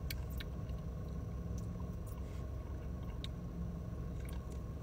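Steady low hum of a car's interior, with a few faint clicks and smacks of someone sipping and swallowing soda from an aluminium can.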